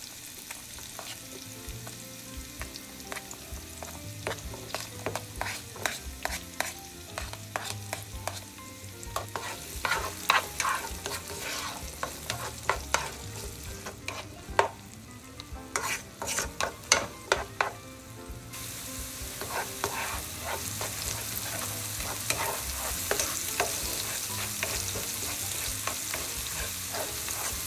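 Diced onion and minced garlic sizzling in hot oil in a nonstick pan, stirred with a cooking spoon that clicks and scrapes against the pan. The sizzle grows louder in the last third as the onions fry toward translucent.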